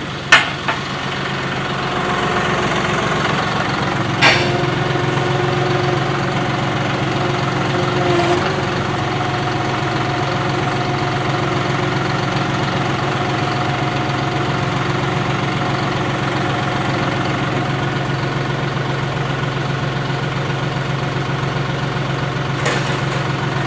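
John Deere 5075E tractor's diesel engine idling steadily, with a sharp knock just after the start and another about four seconds in, and a brief change in the engine note about eight seconds in.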